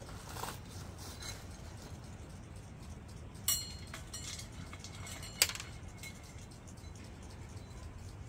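Small items being handled on a camp table: a soft rustle near the start, then two sharp clinks, the first about halfway through with a brief ring, the second, a couple of seconds later, the loudest.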